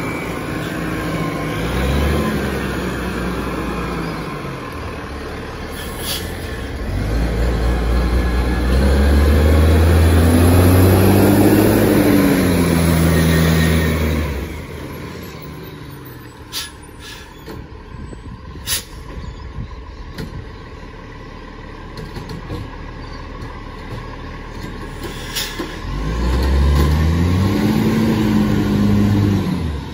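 Diesel engine of a side-loading garbage truck revving under load as the truck drives off, its pitch climbing and dropping twice, the louder run in the middle. In the quieter stretch between, a few sharp short sounds.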